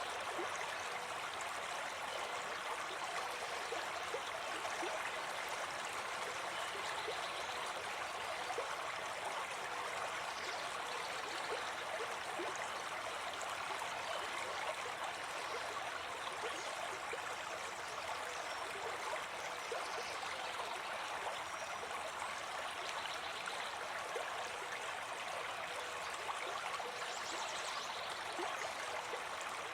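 Forest stream running steadily over rocks, a continuous even rush of water with small gurgles.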